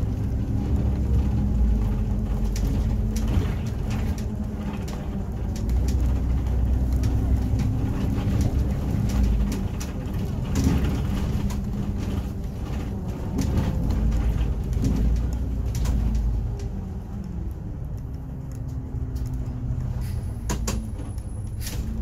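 City bus running along in traffic, heard from inside the cabin: a steady low engine and road drone whose pitch drifts slightly, with frequent small rattles and clicks from the bus fittings and a couple of sharper clicks near the end.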